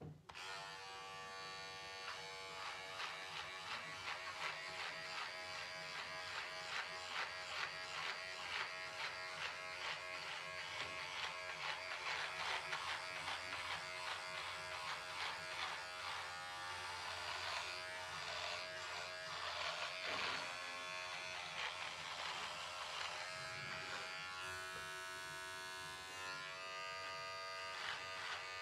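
Electric beard trimmer buzzing steadily as it cuts through a thick, long-grown beard, its pitch dipping briefly a few times in the second half.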